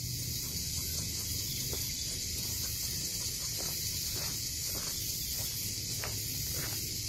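Steady high-pitched drone of an insect chorus in eucalypt bushland, with a low hum underneath. Faint crunching footsteps on the stony track grow more frequent toward the end.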